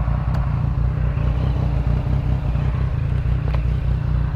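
Honda Hornet motorcycle idling steadily, heard from the rider's seat, with the Yamaha MT-09 running close by. Two light clicks, about half a second in and near the end.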